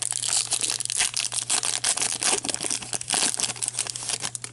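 A hockey card pack's wrapper being torn open and crinkled by hand, a dense run of irregular crackles throughout.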